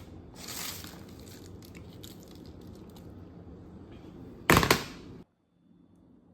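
A short, loud crackle about four and a half seconds in, after a softer rustle near the start, over low steady background noise; the sound then cuts out abruptly.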